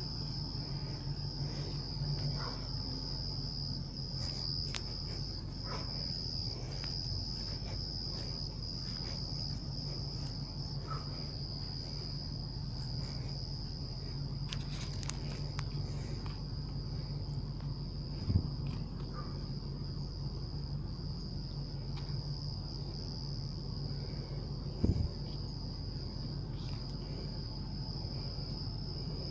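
Cicadas droning steadily on one high pitch, over a low steady hum, with two short thumps in the second half.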